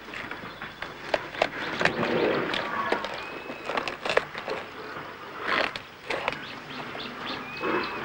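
African elephants tearing and chewing acacia bark: sharp snaps and crackles of bark and twigs, with rustling of dry bark strips. The rustling is louder twice, about halfway through and near the end.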